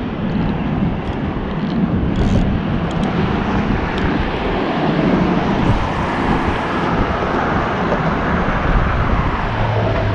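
Loud steady rushing noise of wind buffeting the camera's microphone, with a fluttering low rumble and a couple of faint clicks.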